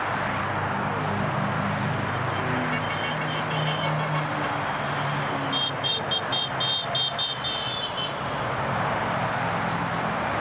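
Motorcycle engine and wind noise at motorway speed. Just past the middle, a vehicle horn gives a rapid run of short high toots, about five a second, for a little over two seconds.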